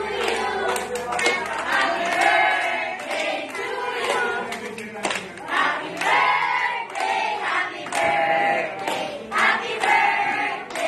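A group of women and children singing together as a choir, clapping their hands along with the song.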